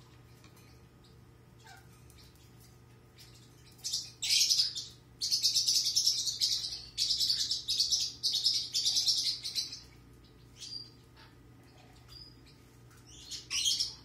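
Young black-capped (rock) conure giving harsh, buzzy calls in a series of bursts from about four seconds in to about ten seconds, with another burst near the end.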